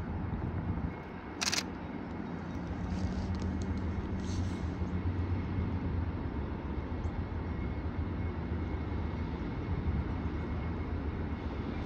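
Slow-moving freight train rolling past: a steady low rumble of the train on the rails. A brief sharp hiss cuts in about a second and a half in.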